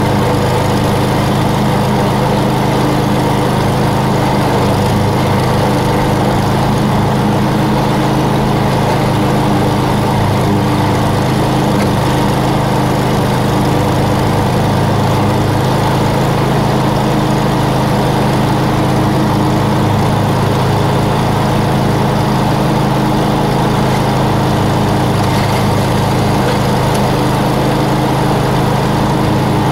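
Lawn mower engine running at a steady, unchanging speed.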